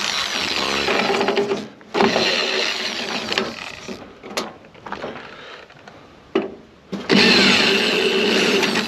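Power drill/driver running in three short bursts of a couple of seconds each, backing out screws, with a few sharp clicks in the pause between the second and third runs.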